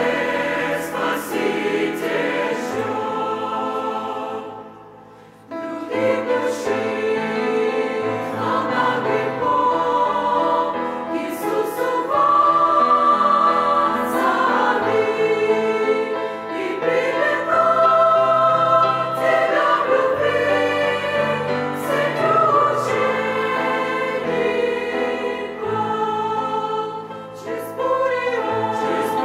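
Church choir singing a Russian-language hymn in several parts over a steady low instrumental accompaniment, with a short pause about five seconds in.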